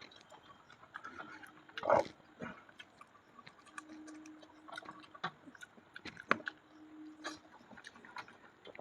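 Close-up chewing of soft fried bread and curry: wet mouth clicks and smacks throughout, with a louder bite or slurp about two seconds in. A low steady hum comes and goes twice in the second half.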